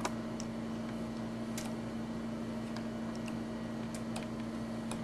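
Steady low electrical hum from lab equipment, with a few faint ticks over it.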